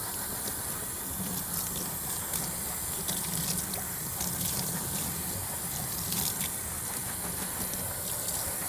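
Tap water running steadily into a utility sink while a foam air filter is worked and squeezed under the stream.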